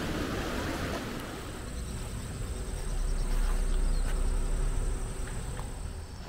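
Outdoor ambience: a low wind rumble on the microphone, strongest in the middle, under a steady high-pitched insect drone that starts about a second in.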